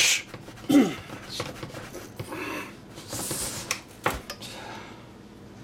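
Long slicing knife sawing back and forth through the hard, dried bark of a dry-aged beef strip loin, in a series of rasping strokes. A sharp knock comes about four seconds in.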